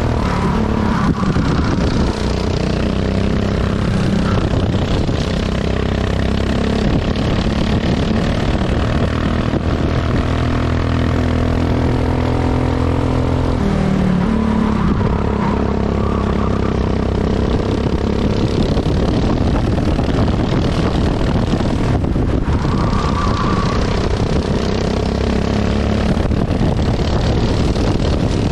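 400cc kart engine running hard at speed, heard from the driver's seat. Its pitch rises and falls with the throttle through the corners, dipping and then climbing sharply about halfway through.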